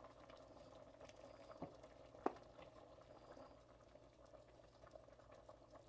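Pot of chicken and dumplings bubbling faintly at a simmer, with two soft clicks of a ladle against the pot.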